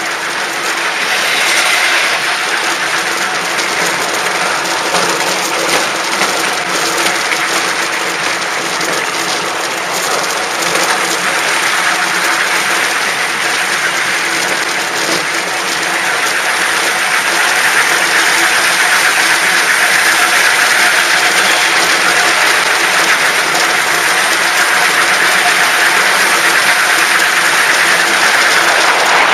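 Miniature park railway train running close by: a steady hiss with a faint hum underneath, growing a little louder about halfway through.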